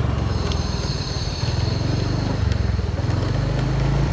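Motor scooter engine running steadily with a fast low pulse and a faint high whine while riding along.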